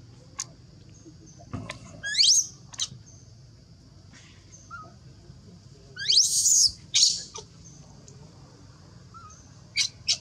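Baby macaque crying in high-pitched squeals that sweep sharply upward. It gives a pair about two seconds in, a run of several around six to seven seconds, and two short ones at the end. These are the distress cries of an infant whose mother has refused it milk.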